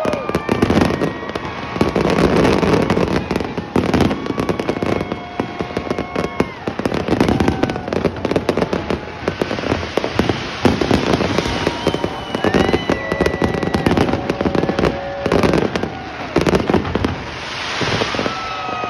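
Large professional fireworks display: rapid, dense bangs and crackling from many shells bursting together, with spectators whooping over the barrage.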